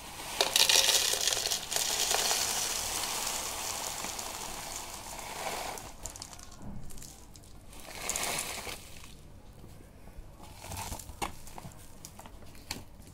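Banslochan (tabasheer) crystals poured from one plastic jar into another: a long rattling, hissing pour of about five seconds, a shorter pour around eight seconds in, then a few light clicks of the pieces and jars near the end.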